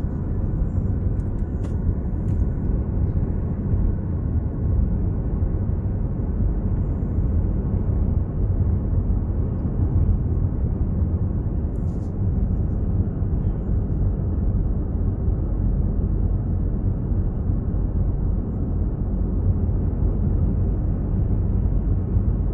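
Steady low vehicle rumble, unchanging throughout, with no distinct clanks or horn.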